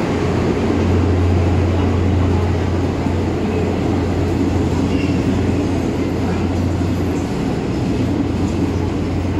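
Silver commuter train rolling slowly past the platform: a steady rumble of wheels on rail over a continuous low hum.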